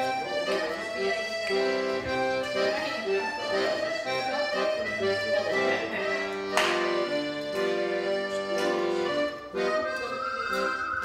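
Accordion music: a tune played over sustained chords, with a few sharp percussive hits, the loudest about six and a half seconds in.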